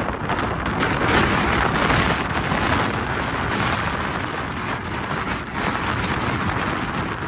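Wind buffeting the microphone: a steady rushing noise with a rumbling low end.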